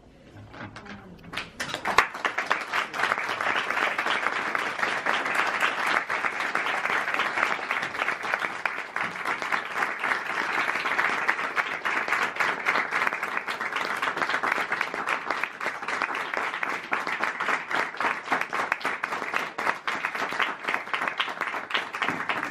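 Audience applauding: many hands clapping. It starts about a second and a half in and goes on steadily.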